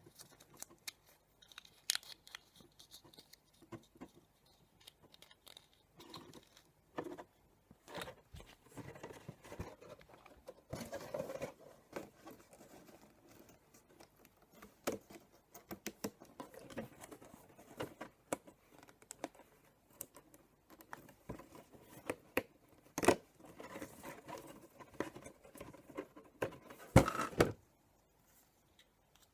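Hands unpacking and setting up small toy pyramids: irregular light clicks, taps, rustling and tearing of packaging, with a few sharper knocks in the last third.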